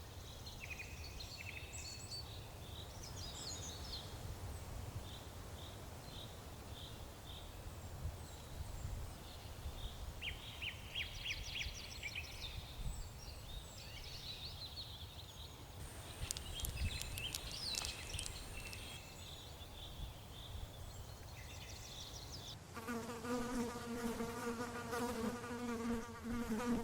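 Scattered high chirps and trills over a low rumble; near the end a fly starts buzzing, a steady hum that sets in suddenly and is the loudest sound.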